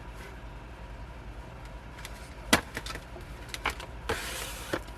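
Album contents being handled by hand: one sharp click about halfway, a few lighter taps, and a brief rustle of paper or plastic near the end, over a low steady hum.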